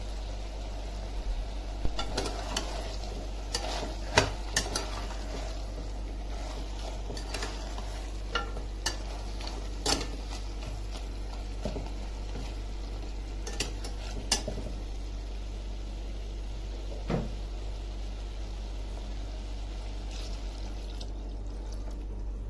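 Steel spatula stirring and scraping mutton pieces in masala in a stainless steel pressure cooker, with scattered sharp clinks of the spatula against the pot over a low sizzle as the meat fries.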